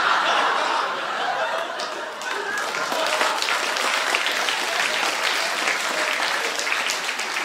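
Audience applauding and laughing, a dense patter of clapping, loudest at the start and settling into steady applause.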